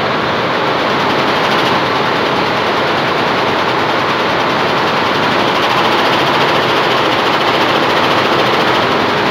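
Yuemei computerized multi-head embroidery machine stitching at speed: a fast, steady mechanical rattle of the needle heads.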